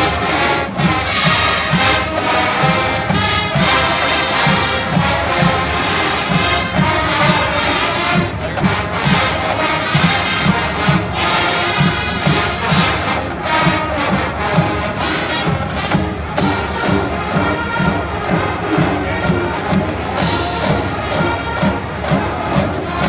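Marching band playing its halftime show: brass over a steady, driving drum beat, heard from the stands with crowd noise beneath.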